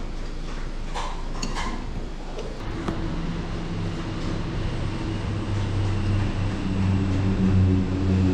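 A metal spoon clinks against a ceramic soup bowl a couple of times, then from about three seconds in a low engine hum sets in and grows steadily louder as a vehicle runs close by.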